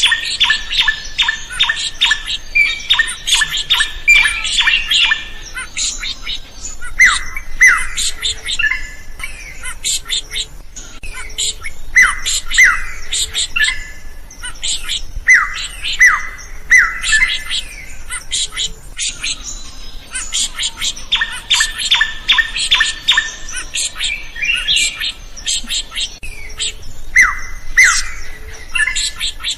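A drongo singing in full voice: spells of fast, harsh chattering alternate with pairs of sharp, falling whistled notes.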